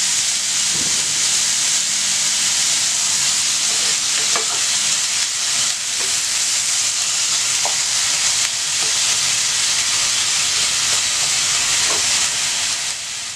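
Minced chicken and chopped onion sizzling steadily in a hot nonstick pan, frying dry without water, with a wooden spatula stirring and scraping through it now and then.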